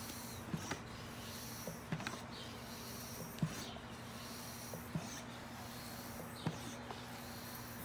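Floor pump inflating a bicycle inner tube: a short hiss of air with each stroke, about one stroke every second and a half, with a light click at each stroke.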